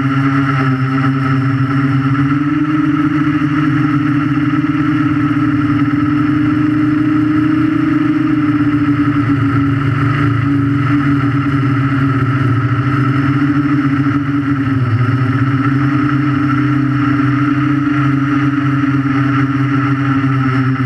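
Electric motors and propellers of a 3D quadcopter heard from on board, a loud steady buzzing whine whose pitch drifts slightly up and down, dipping briefly about two-thirds of the way through.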